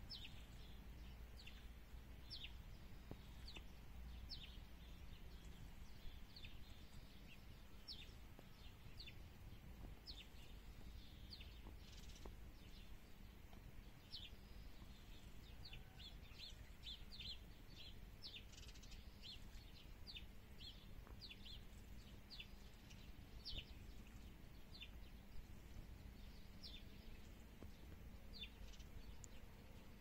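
Faint, quick bird chirps from sparrows, short high cheeps repeated irregularly, with a busier run of chirping around the middle.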